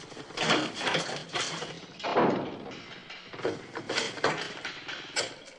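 A run of knocks and thumps, the sharpest about five seconds in, as a handset is handled on a rotary desk telephone near the end.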